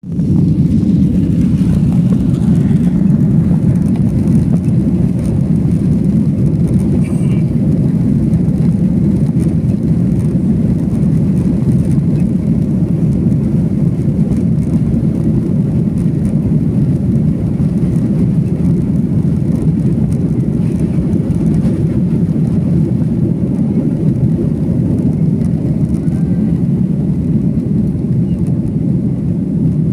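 Lion Air airliner taking off: a loud, steady low rumble of engines and airframe that holds unchanged throughout.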